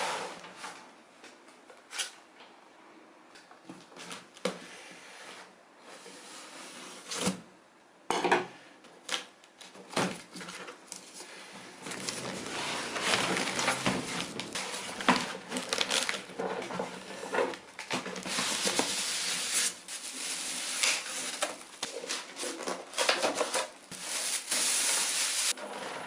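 Cardboard shipping box of a micro-ATX PC case being handled and opened, with scattered knocks and bumps at first. From about halfway the cardboard flaps rustle and scrape more densely as the case is slid out.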